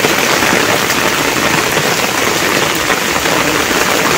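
Heavy downpour: rain falling steadily on foliage and wet ground, an even hiss of drops.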